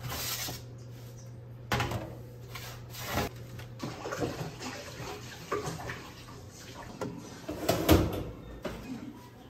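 Scattered knocks, clatter and rustling of kitchen handling over a steady low hum, with a sharp knock about two seconds in and the loudest clatter about eight seconds in.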